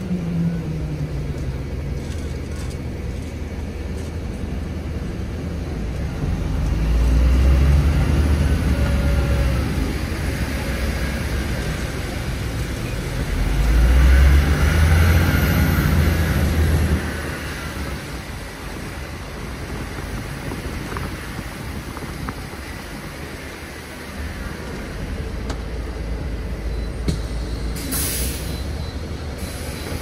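City bus heard from inside the cabin, its drivetrain rumbling and swelling twice as it accelerates, then running quieter. Near the end come two short bursts of air hiss from the brakes as the bus pulls up at a stop.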